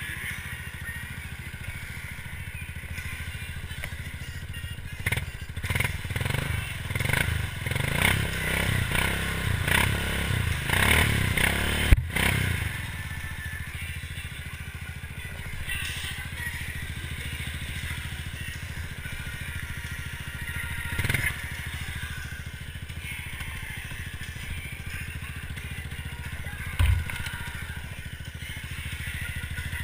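ATV engine running steadily and revved in uneven surges for several seconds while the quad is stuck in a swamp mud hole. A sharp knock comes about twelve seconds in, and a shorter one near the end.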